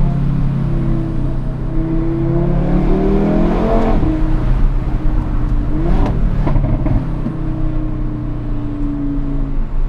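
Audi RS3's turbocharged five-cylinder engine, heard from inside the cabin, accelerating hard. The revs climb and fall sharply at a gear change about four seconds in, climb again and fall at a second change about two seconds later, then settle.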